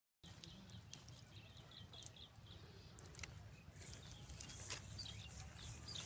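Faint small-bird chirps in the open: a quick run of short high notes in the first couple of seconds, then a few scattered short notes and clicks, over a low rumble.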